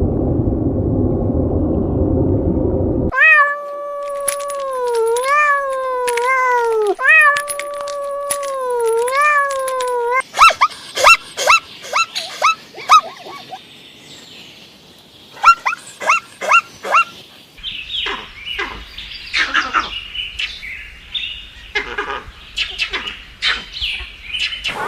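A sequence of different animal calls. A low rumbling noise gives way about three seconds in to a long, wavering pitched call lasting about seven seconds. A run of short, sharp high calls follows, then scattered clicks and short calls near the end.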